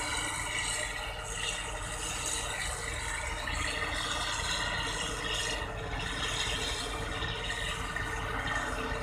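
New Holland 1545 combine harvester running steadily as it reverses on its crawler tracks, with engine hum and mechanical rattle.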